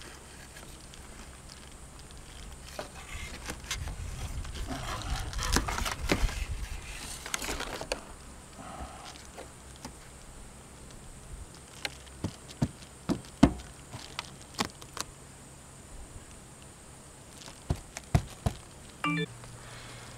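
Handling noise from fitting an adhesive gasket strip along the ridge of a steel panel roof. There is rustling and scraping for several seconds, then a string of sharp taps and knocks on the metal roofing sheets.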